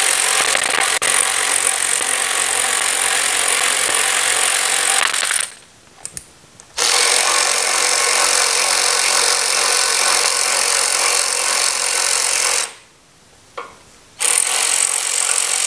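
Cordless power ratchet with a 1/4 inch hex socket running in three long spells of several seconds each, with short pauses between, backing out the front fender bolts. No crackling of thread locker: these bolts have been out several times before.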